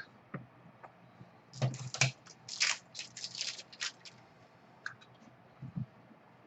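Crinkly rustling and clicking of trading cards and their packaging being handled by hand, in a burst lasting about two seconds, followed by a few light taps and soft thumps near the end.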